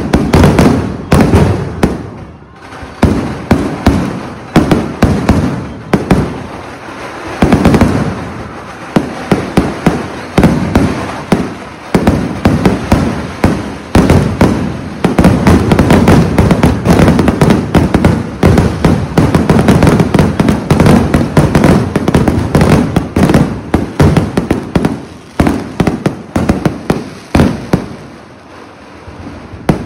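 Kerala vedikettu fireworks: a rapid string of loud bangs and shell bursts with short lulls, thickening into a near-continuous barrage in the middle before easing off near the end.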